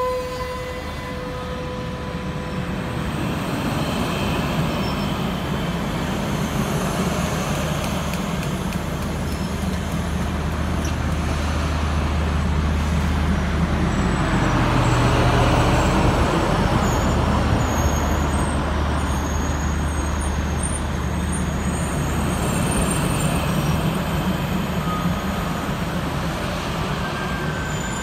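A long string of Union Pacific streamlined passenger cars rolling past close by: a steady rumble and clatter of steel wheels on the rails, swelling in the middle. A held whistle note from the locomotive far up front fades away over the first few seconds.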